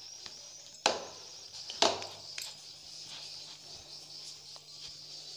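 Kitchenware knocked against a granite countertop as a bowl of dough is handled: two sharp knocks about a second apart, then a lighter one, over a faint steady high hiss.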